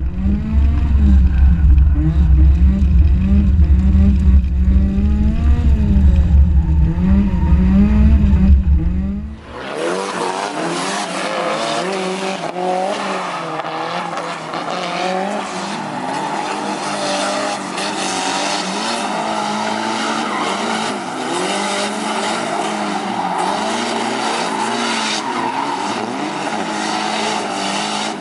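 Drift car engine heard from inside the cabin, revving up and down over and over through a slide with a heavy low rumble. About ten seconds in the sound changes to trackside: two drift cars circling with engines revving and tyres squealing and skidding.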